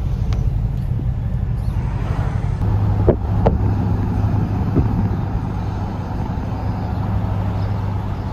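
Steady low rumble of road and engine noise inside a Ram pickup's cab while it drives towing a boat trailer. A few faint clicks come around the middle.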